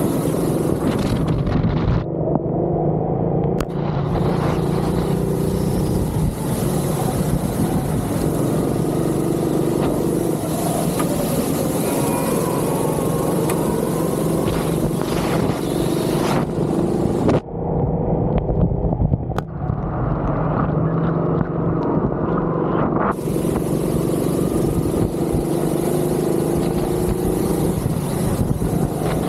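Go-kart engine running on a wet track, its pitch rising and falling as the throttle is opened and eased through the corners. A high hiss rides over it and drops out twice for a few seconds.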